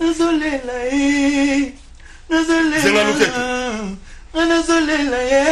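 A man singing unaccompanied in long held notes, three drawn-out phrases with short breaths between them.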